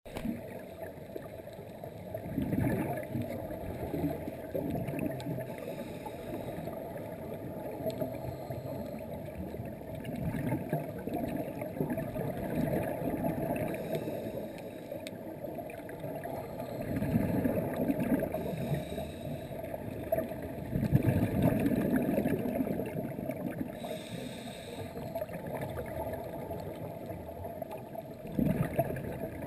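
Muffled underwater sound with a steady wash and low bubbling surges every few seconds from a scuba diver's exhaled bubbles. There are short hisses between them.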